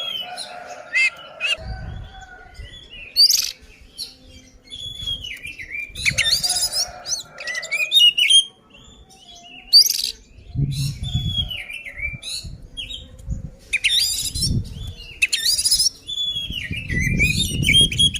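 Oriental magpie-robin singing a loud, varied fighting song: whistled notes gliding up and down mixed with short harsh rasping notes, the kind of challenge song used to provoke rival males. A low rumbling noise builds near the end.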